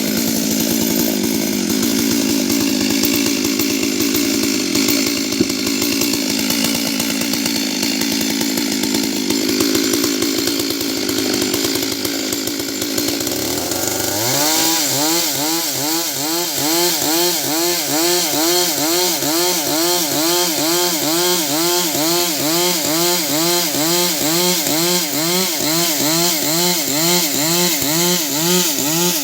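Stihl MS 382 two-stroke chainsaw running at high revs, cutting through a large tree trunk. About halfway through, its pitch jumps higher and then rises and falls in a steady rhythm, a little more than once a second.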